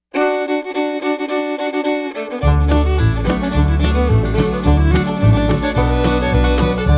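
Background music in a bluegrass style. It opens with a sustained bowed-string melody alone, and about two and a half seconds in a bass and rhythmic plucked strings join in.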